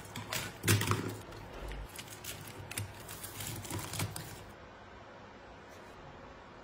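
Dry pine cones being packed by hand into a plastic pot, their scales clicking and knocking against the plastic and against each other in a quick, irregular series. A wooden block is set in among them. The clicking stops about four and a half seconds in.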